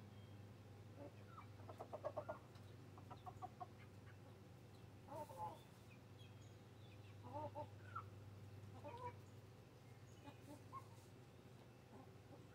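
Chickens clucking: a quick run of clucks about two seconds in and another a second later, then scattered short calls, over a low steady hum.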